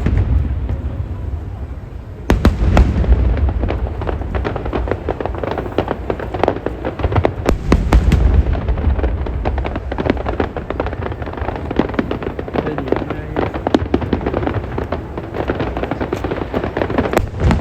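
Aerial fireworks display: deep booming bursts with dense crackling between them, the biggest booms at the start, a little after two seconds in and about eight seconds in.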